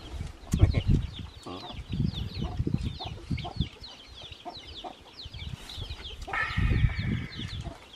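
Chickens: a rapid, steady stream of short high peeps, with a longer drawn-out call about six and a half seconds in. Low thumps sound underneath, the loudest just after the start.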